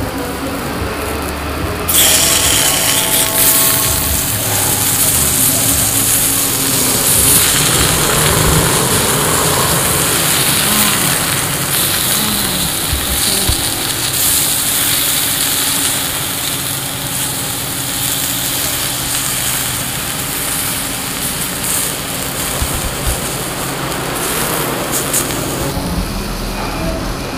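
Pork sizzling on a hot moo kratha (Lao sin dat) grill pan: a loud, steady hiss that grows brighter about two seconds in.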